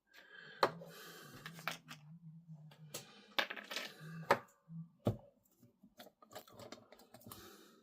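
Small plastic model-kit parts and a glue container being handled on a workbench: about half a dozen sharp clicks and taps with soft rustling between them.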